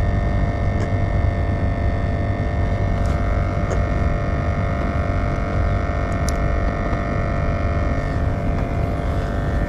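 Steady low rumble with a droning hum of several held tones over it. The higher tones shift slightly about eight seconds in.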